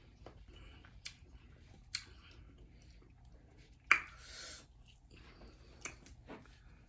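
Faint mouth sounds of someone chewing pineapple chunks, with scattered soft clicks and one sharper smack about four seconds in, followed by a brief hiss.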